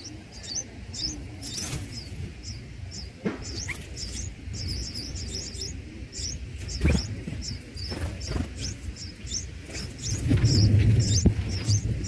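Red-whiskered bulbul nestlings begging at the nest: a steady run of short, high, thin chirps, several a second. A louder low rumble comes in over the last two seconds.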